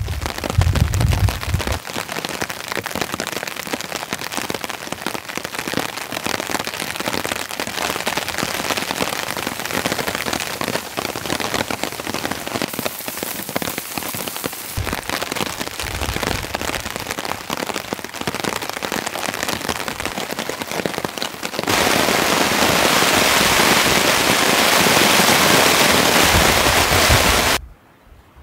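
Heavy rain: a dense pattering of drops that becomes a louder, more even downpour about 22 seconds in, then cuts off suddenly near the end. Low gusts rumble on the microphone now and then.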